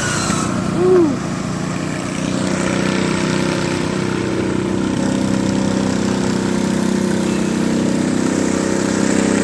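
Small engine of a pulley-swapped riding lawnmower running steadily at wide-open throttle, the throttle held open by a bungee cord. It grows slightly louder after about two seconds.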